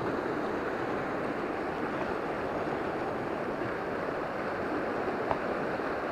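Steady rushing of a mountain river's fast water running over rocks into a pool. There is a single short click a little past five seconds in.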